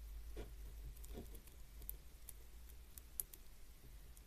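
Faint, scattered clicks of faceted beads knocking together as a beaded folding cube is handled and threaded, with a couple of soft rustles early in the first second and a half and a sharper tick a little after three seconds in. A low steady hum runs underneath.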